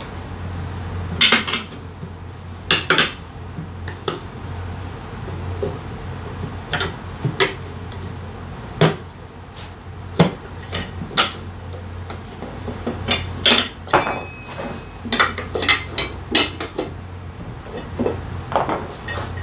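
Steel tire levers knocking and clinking against a motorcycle's cast-alloy rear rim as the tire bead is pried over the rim edge: irregular sharp metallic clanks, some ringing briefly, over a steady low hum.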